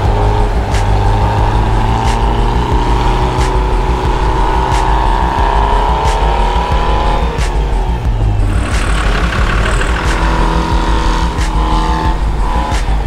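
Off-road vehicle's engine running hard at high revs, its pitch slowly wavering, with scattered sharp knocks.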